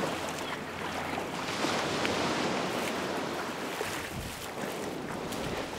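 Sea surf washing over rocks and onto the beach, with some wind noise on the microphone.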